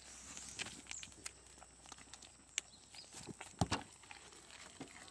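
A goat's hooves tapping and shifting on a wooden step: scattered faint clicks, with two louder knocks close together about three and a half seconds in.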